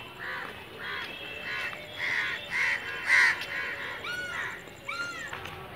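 Crows cawing: a run of short repeated caws, loudest about two to three seconds in, then two longer drawn-out caws near the end.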